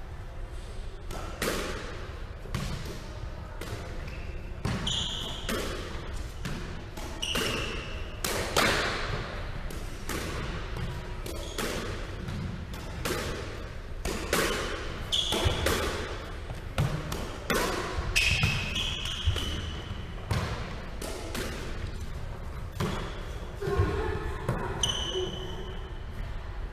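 Squash rally: the rubber ball smacking off rackets, the front wall and the wooden floor in sharp, irregular impacts about every second, each ringing in the enclosed court. Brief high squeaks of shoes on the wooden floor come in now and then.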